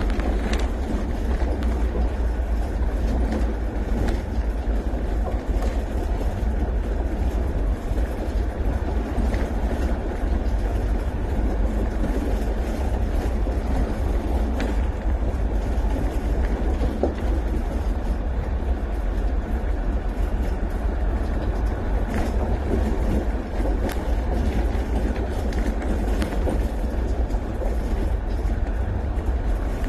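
Vehicle driving along a rough gravel track, heard from inside the cab: a steady low rumble of engine and tyres on stones, with occasional knocks and rattles from the bumps.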